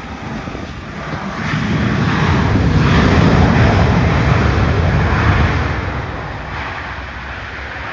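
Boeing 757 freighter's twin jet engines roaring as the aircraft rolls past on the runway, swelling to a peak in the middle and then fading as it moves away.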